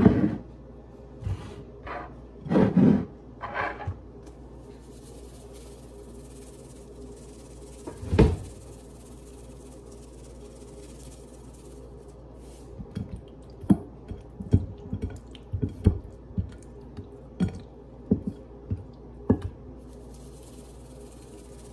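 Kitchen handling sounds: a plate and spice containers knocking and clattering on the countertop in the first few seconds, a single thump about eight seconds in, then a quick run of short light taps and clicks as spice shakers are shaken over raw chicken. A faint steady hum runs underneath.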